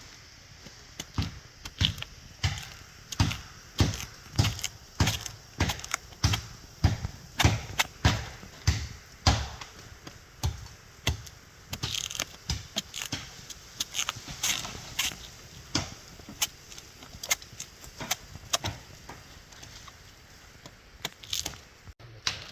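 Repeated chopping strikes into plant stems, about two a second, for the first half, then lighter cracking and rustling as stems are broken and handled.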